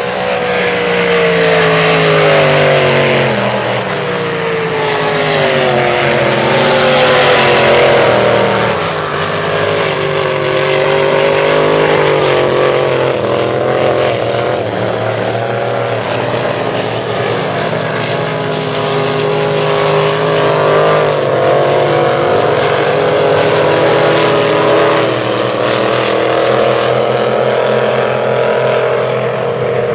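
Engines of unlimited displacement-class race boats running hard at racing speed, their pitch sliding down as they pass, with several engines heard at once.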